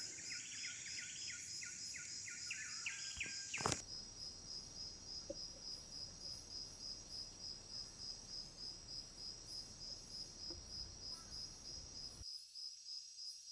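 Insects chirring in a steady pulsing rhythm, about three pulses a second. In the first few seconds a second, denser chirring sits over it, then cuts off abruptly.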